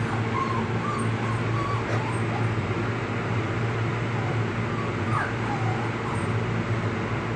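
Dog whimpering in thin, high, wavering whines that come in short runs, over a steady low mechanical hum.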